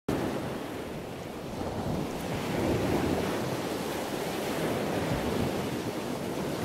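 Ocean surf: waves washing and foaming in a steady rush that swells up about halfway through.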